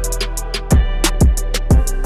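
Background music: an electronic hip-hop-style beat with kick drum, hi-hats and a sustained bass line.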